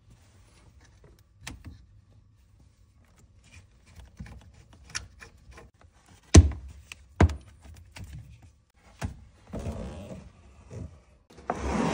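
Hands handling plastic hoses and a plug behind a dishwasher: scattered light clicks and knocks, two louder knocks about six and seven seconds in, then rubbing and scraping near the end.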